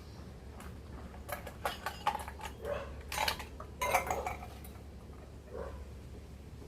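Dishes and cutlery clinking and knocking, in a cluster of sharp clicks between about one and four seconds in.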